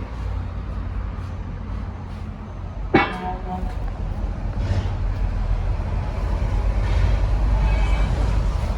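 A 300 kW SDEC diesel generator set's engine running with a steady low rumble that grows gradually louder over the second half. About three seconds in there is a single sharp metallic clank with a short ring.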